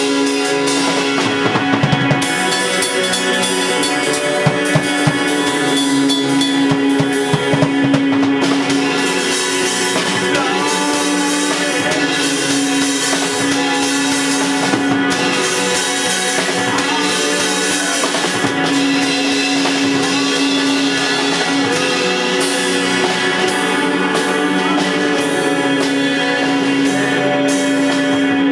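Live band playing an improvised rock jam: a drum kit hitting over a long held droning note, with other instruments layered above. The drum hits are heaviest in the first several seconds.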